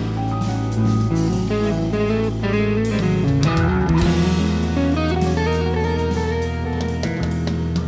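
Fender American Performer electric guitar played with a mid-gain crunch tone, picking a melodic lead line of single notes that climbs in a run partway through, over a backing track with bass and drums.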